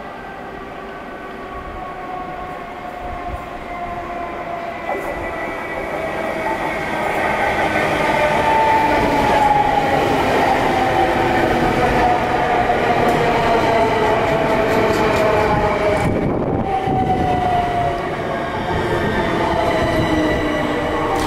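Electric multiple unit of the Bombardier Electrostar family drawing near, growing louder, with several whining traction motor tones sliding slowly down in pitch as it slows.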